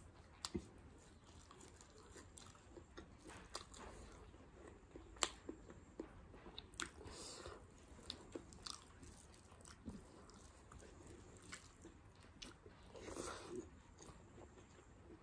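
Faint close-up eating sounds: a person chewing and biting food, with many small scattered mouth clicks and smacks.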